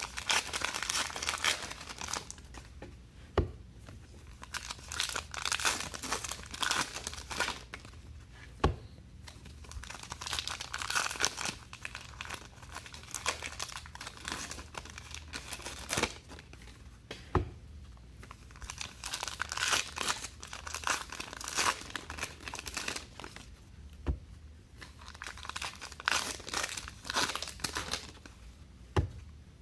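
Trading card pack wrappers being torn open and crumpled, in repeated bursts of crinkling, with a few sharp taps or clicks from handling.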